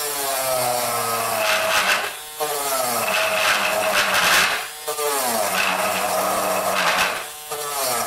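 Handheld rotary tool with a grinding bit running against a plastic computer cover, grinding a hole through it. The motor drops out briefly three times, about every two and a half seconds, and spins back up in rising pitch each time.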